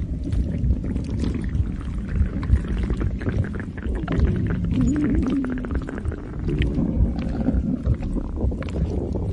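Stomach growling and gurgling: a continuous low rumble with small pops, and a wavering pitched growl about halfway through, followed by another shortly after.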